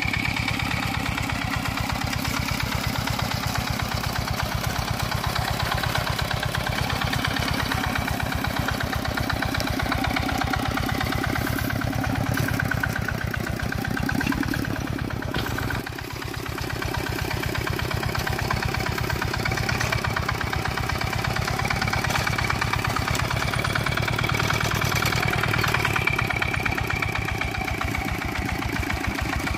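Two-wheeled hand tractor's Dongfeng single-cylinder diesel engine running steadily with rapid, even firing beats. The level dips briefly about halfway through.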